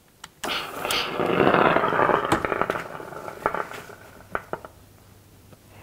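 Hose-fed steam iron worked over a folded cotton hem: a rushing noise starts about half a second in, swells, and fades away over about three seconds. A few light clicks and taps follow as the iron is set down and the fabric handled.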